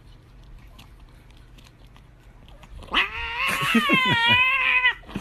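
Domestic cat giving one long, loud, wavering yowl that starts about three seconds in and lasts about two seconds: an angry protest at its treat stick being taken away.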